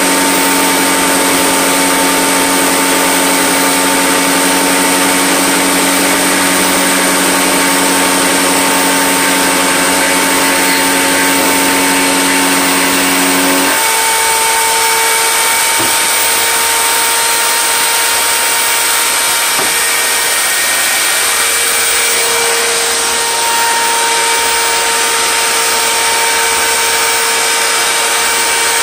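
An electric power tool running loudly and steadily. About fourteen seconds in, its low hum drops away and a single higher tone carries on.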